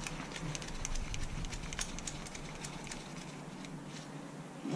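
Faint, irregular small clicks and rustling as a gloved hand threads the 10 mm bolt of a camshaft position sensor in by hand.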